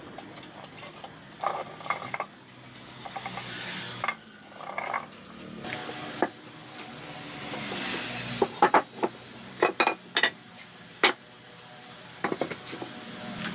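Pieces of wood being handled and knocked together: scrapes and light taps early on, then a run of sharp clacks in the second half as planks are set against each other.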